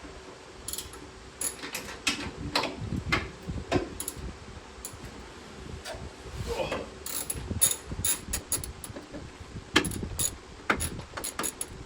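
Ratchet wrench with a half-inch socket loosening a bolt under the dash: irregular clicking of the ratchet and knocks of the tool, with quick runs of clicks about seven seconds in and again near the end.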